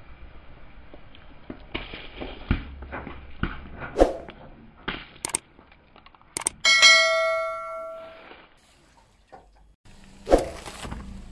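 A car tyre rolling over lemons, crushing them with a few sharp cracks. Then the loudest sound: a bell-like chime that rings out suddenly and fades over about a second and a half, the sound effect of a subscribe-button animation. A single thump comes near the end.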